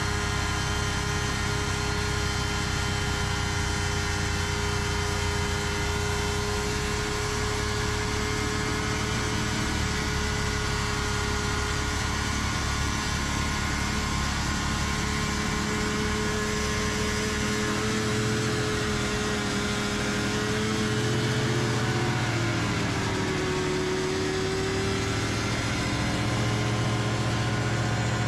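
Engines of a backhoe and its snowmobile-engine-driven snowblower running steadily. The pitch dips and shifts for a few seconds about three-quarters of the way through.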